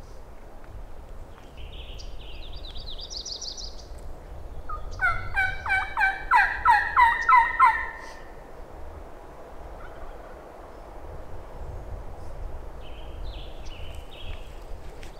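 Turkey calling: a loud run of about a dozen evenly spaced notes lasting about three seconds, starting a few seconds in. A songbird sings a short rising phrase just before it, and another sings briefly near the end.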